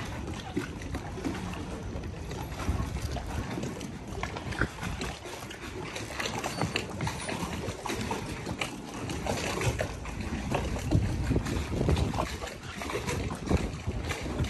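Marina ambience: wind rumbling on the microphone over water lapping at the hulls and pontoon, with scattered small knocks and clicks.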